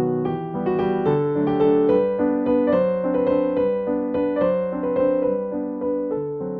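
Background music: a piano or electric piano playing a gentle melody of steady notes over held chords.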